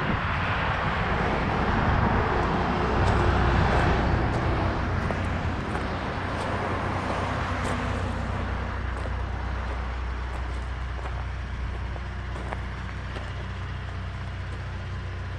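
A motor vehicle's engine running, with a steady low hum. Its noise swells over the first few seconds and then slowly eases off, and a few faint clicks sound through it.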